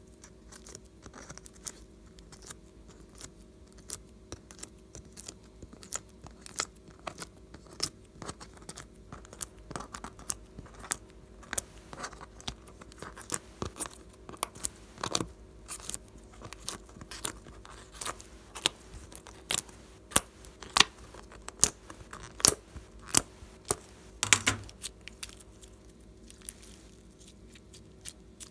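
Fingernails picking and pressing at pink dried discs set in a black tray of wells, giving irregular sharp clicks and crackles, several a second at times, with a louder cluster about 24 seconds in. The clicks thin out over the last few seconds.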